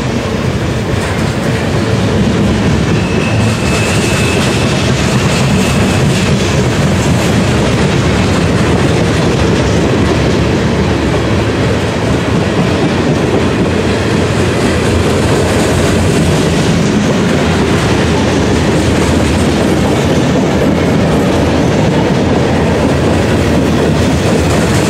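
Freight cars of a mixed freight train rolling past at close range: steel wheels running loud and steady on the rails, with a clickety-clack as the wheels cross rail joints. A faint, high wheel squeal comes in briefly a few seconds in.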